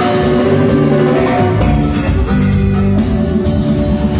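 Live cumbia band playing a sound check: electric guitars, drum kit and keyboards, with the bass coming in heavily about a second and a half in.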